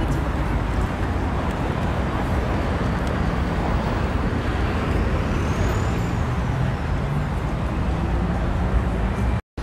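City street traffic: a steady wash of passing cars and buses, with a faint high whine rising and falling about five seconds in. The sound cuts out completely for a moment near the end.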